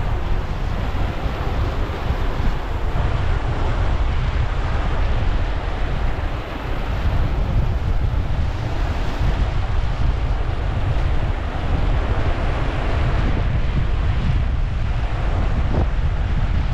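Sea surf breaking and washing along a beach, with wind buffeting the microphone in a steady low rumble.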